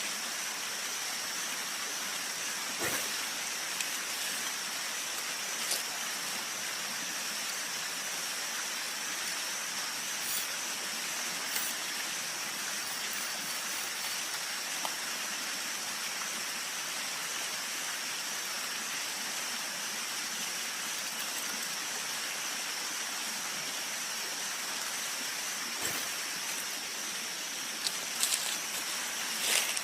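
Steady hiss of flowing river water, with a constant high-pitched whine on top and a few faint knocks.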